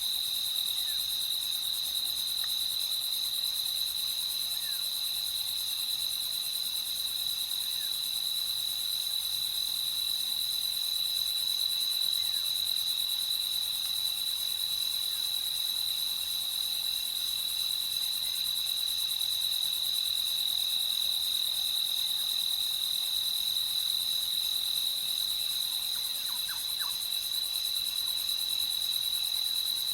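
Crickets in a continuous, steady, high trill at night, with a few faint short chirps from another creature near the end.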